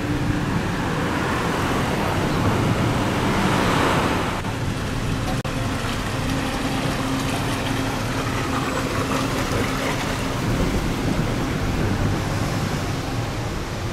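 Road traffic noise from cars passing and queuing in slow traffic, with a louder swell of a passing vehicle about four seconds in.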